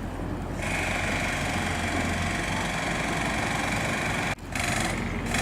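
A machine engine running steadily, with a higher-pitched whine joining about half a second in. The sound cuts out for a moment about four seconds in and then comes back.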